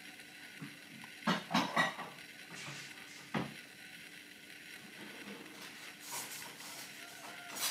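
Small 3D-printed pulse motor's rotor spinning with a plastic drinking straw rubbing on it at two points as a drag brake: a faint steady rubbing, with several sharp clicks in the first few seconds.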